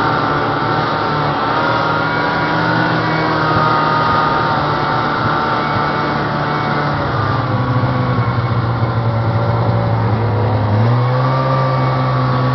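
Snowmobile engine running under way, heard from the rider's seat. The engine pitch drops about seven seconds in and picks up again near the end, over a constant hiss.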